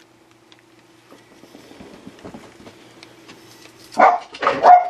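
Faint crinkling and ticking of plastic packing material as a glass CRT is turned over in an open box, over a faint steady hum. About four seconds in, a dog barks a few times, short and loud.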